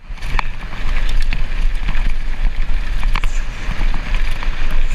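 Mountain bike running fast down a rough downhill trail: steady wind rush on a GoPro microphone, broken by sharp clicks and knocks of the bike over the ground.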